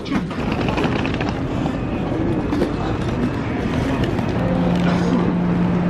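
Wheeled suitcases rolling over a stone station-platform floor among walking passengers, a steady rumble. A steady low hum joins in about four seconds in.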